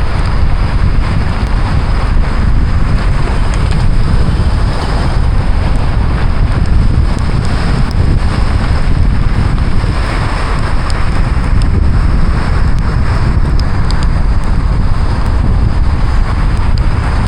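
A car driving through heavy rain: a loud, steady rushing noise of rain and wet tyres with a deep rumble underneath, and a few faint ticks of drops hitting.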